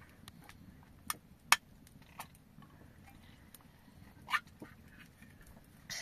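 A ring-pull metal food can being handled and opened: a few sharp clicks and taps, the loudest about a second and a half in. Near the end comes a short scraping hiss as the tab breaks the lid's seal.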